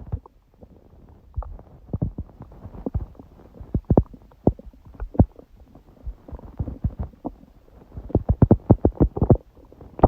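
Human stomach gurgling and growling: a run of short, irregular pops and gurgles that crowd into a dense flurry near the end. The stomach is digesting a large udon meal, and its owner puts the noise down to eating gluten again after a long break.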